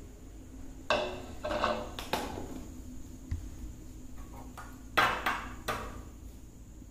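Stainless steel mixer-grinder jar, its lid and a steel spoon clinking and knocking as they are handled, several short metallic clanks with brief ringing, the loudest about five seconds in.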